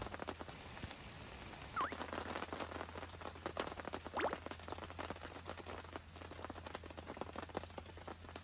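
Rain pattering in many small, irregular drops, over a steady low hum. Two brief pitched glides stand out, about two and four seconds in.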